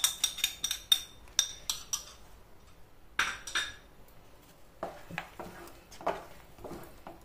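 Quick run of ringing metallic clinks and taps as roasted cashews are scraped and tapped off a small bowl into the pan. From about five seconds in, softer scraping strokes follow as a wooden spatula stirs the thick semolina kesari in the pan.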